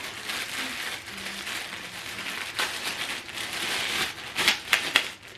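Plastic packaging crinkling and rustling as accessories are unwrapped, with a few light clicks near the end.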